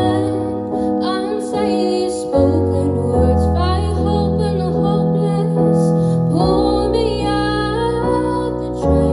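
A woman singing a slow ballad live into a microphone, accompanied by piano chords with changing bass notes.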